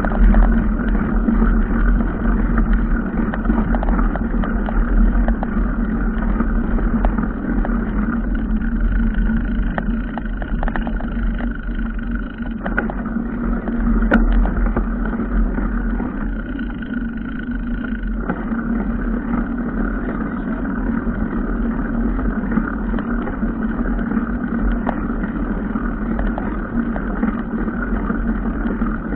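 A motor vehicle running steadily with a deep rumble and a constant engine hum, as if driving along, with a few faint knocks and one sharper click partway through.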